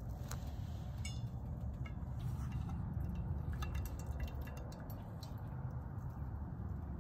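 Scattered light clicks and clinks of an AeroPress's plastic parts being handled as the plunger is set in and pressed down, over a steady low rumble.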